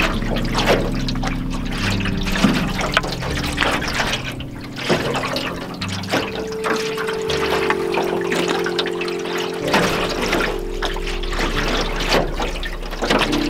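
Small lake waves lapping and slapping irregularly against the hull of an aluminum canoe, over held notes of soft ambient music.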